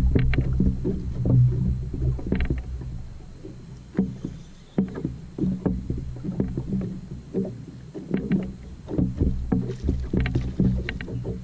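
Small waves lapping and slapping against a bass boat's hull in irregular knocks, over a low rumble.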